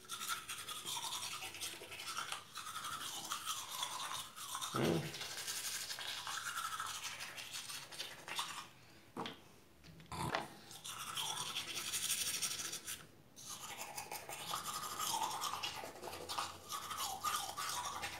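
Manual toothbrush scrubbing teeth in quick back-and-forth strokes, with a couple of brief pauses and a soft thump about five seconds in.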